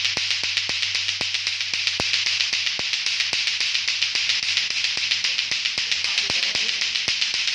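Lato-lato clacker toy: two plastic balls on a string knocking together in a steady run of sharp clacks, about four a second.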